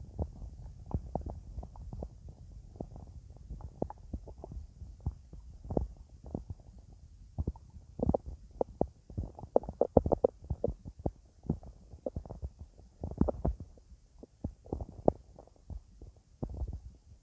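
A person's stomach growling: a quick, uneven run of short gurgles and pops, loudest in clusters about eight to ten seconds in and again around thirteen seconds.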